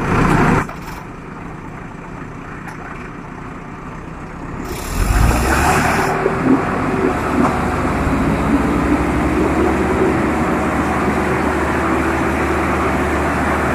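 Diesel engines of a JCB backhoe loader and a Sonalika tractor running close by. About five seconds in they grow louder into a steady heavy rumble with a wavering whine over it, as the backhoe works to pull the tractor on a tow rope.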